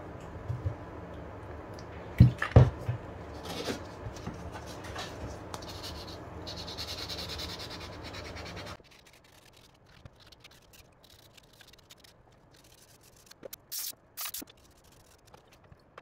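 Hands working a slip-joint folding knife, with a few sharp knocks and clicks of the knife being handled, then an abrasive rust pad scrubbing rust off the knife with a steady scratchy rasp. The level then drops suddenly, and two short hissing bursts follow a few seconds later.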